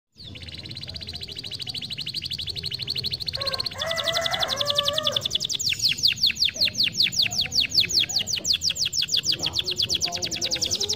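Domestic canary singing. It opens with a very fast trill, then from about four seconds in switches to a slower, louder run of sharp downward-sweeping notes, about seven a second. A brief lower warble sounds around four to five seconds.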